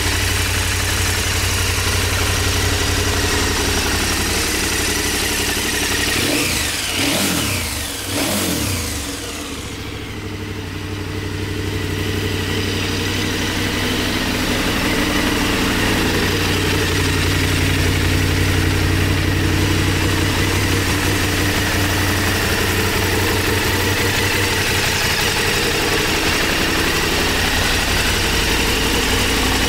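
KTM 1290 Super Adventure's V-twin engine idling steadily, with a few quick revs of the throttle about six to nine seconds in.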